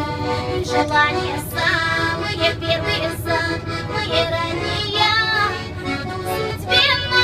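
A young woman singing a song, her voice wavering with vibrato, over instrumental accompaniment and the steady low rumble of a commuter train.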